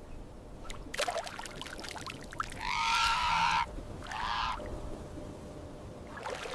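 An animal calling twice: a loud call lasting about a second, then a shorter one, after a run of short clicks.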